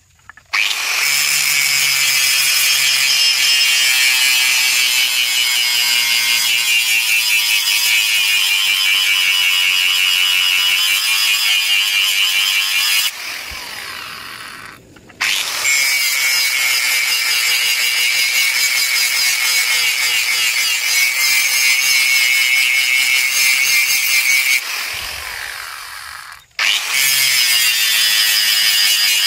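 Hand-held angle grinder grinding a forged steel machete blade, running with a steady high whine. Twice it is switched off and winds down over a second or two, then is started up again.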